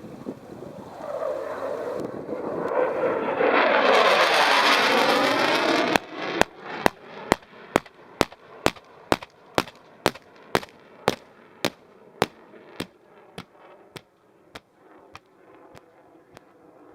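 Jet aircraft noise swells for about six seconds and cuts off abruptly. Then comes a long, regular string of sharp pyrotechnic bangs, about two a second, each fainter than the one before.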